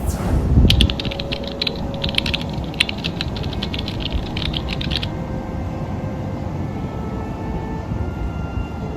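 Wind buffeting the microphone as a steady low rumble, with a quick run of sharp irregular clicks for a few seconds near the start.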